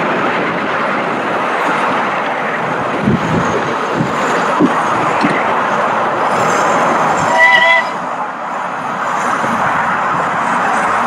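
Miniature steam locomotive running with its passenger train, a steady running noise with a few clicks, and a short toot on its whistle about two-thirds of the way through.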